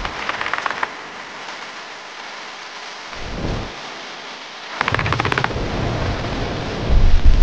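A sedan's tyres and suspension running over a long row of rubber speed bumps: rapid rattling runs of impacts and deep low thumps over a steady rush of road and wind noise.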